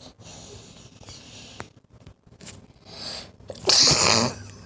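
A person sneezes once, loudly, near the end, after a few short breathy intakes.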